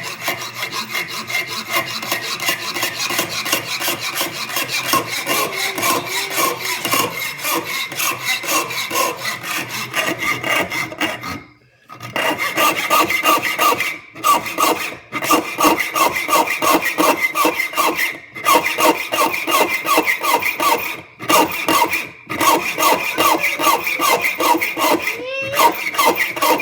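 Hacksaw blade cutting through a hard metal screw clamped in a vise, in fast back-and-forth strokes. The sawing stops briefly about halfway through and pauses a few more times later.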